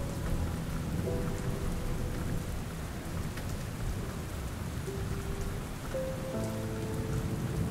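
Ambience of steady rain with a low, continuous thunder rumble, under a slow melody of a few long held notes.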